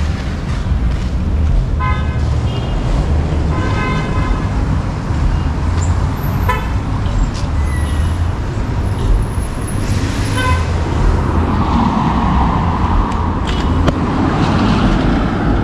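Street traffic: vehicles passing with a steady low rumble, and short car-horn toots about four times in the first ten seconds.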